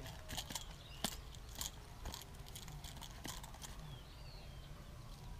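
Faint scattered clicks and rustles of a largemouth bass being landed and grabbed on a grassy pond bank, over a low steady rumble.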